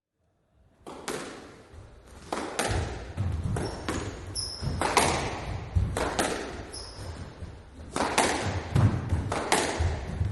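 Squash rally: the ball is smacked by rackets and off the court walls, sharp irregular hits, each with an echo from the enclosed court. There are two short high squeaks partway through, typical of shoes on the court floor.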